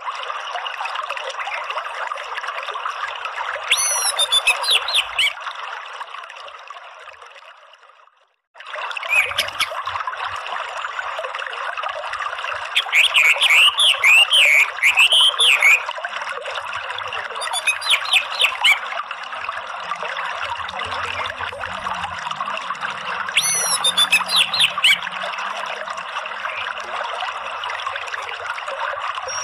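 A steady rush of flowing stream water with an orange-headed thrush breaking in several times: high twittering bursts about four seconds in, a louder warbling run between about thirteen and sixteen seconds, and shorter bursts later. The water fades away to a moment of silence about eight seconds in, then comes back abruptly.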